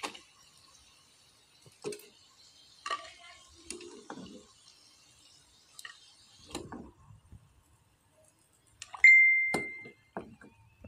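Fried battered clam pieces being set down on a plate, with scattered light taps and clinks, over a faint sizzling hiss of frying oil that stops about two-thirds of the way through. Near the end comes a single clear ding that rings and fades over about a second, the loudest sound.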